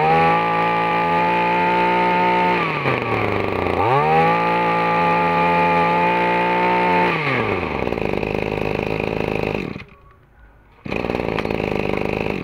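Small two-stroke grass trimmer engine, a Shindaiwa 22 cc with a 32 mm bore, revved to full throttle twice, each rev held about three seconds before dropping back to idle. It cuts out about ten seconds in, and a steady noise follows near the end.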